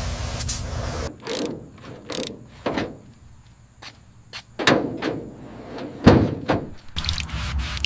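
About a second of steady hissing, then a run of separate metallic knocks and clanks, each with a short ring, from tools and metal car parts being handled. A steady rubbing noise starts near the end.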